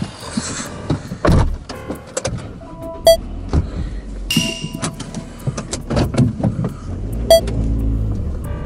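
Car cabin sounds as the driver settles in: clicks and knocks of the door, seat and controls, and short beeps about three seconds in and again about seven seconds in. The engine is started and runs with a low, steady rumble near the end.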